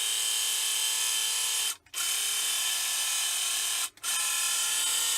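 Battery-powered electronic engine sound effect of a vintage Darth Vader TIE Fighter toy. It plays a steady buzzing drone three times, each about two seconds long with a brief break between. It is back to working after the toy was shaken to free its faulty sound mechanism.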